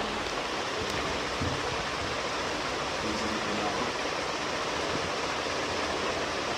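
Steady rushing background noise, like a fan running, with a couple of faint soft ticks about one and one and a half seconds in.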